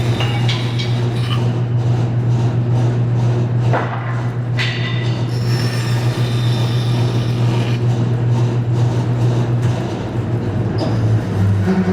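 Woodworking band saw running with a steady motor hum while its blade cuts relief cuts into a board, with high whining tones that come and go as the blade works through the wood.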